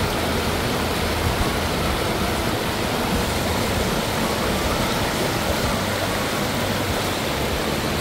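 Mountain stream rushing and splashing over rocks in small cascades, a steady, unbroken rush of water.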